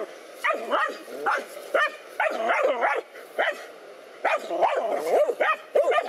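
Dogs barking and yelping in a rapid, agitated string of short barks while confronting a snake.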